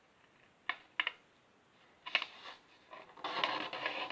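A square of paper being folded diagonally: a few short, sharp crinkles, then a longer scratchy rustle from about three seconds in as the fold is pressed down.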